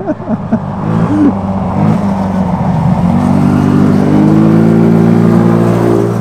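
150cc GY6 four-stroke single-cylinder scooter engine driving a ride-on jeep under throttle: its pitch climbs about halfway through, holds high, then drops off just before the end.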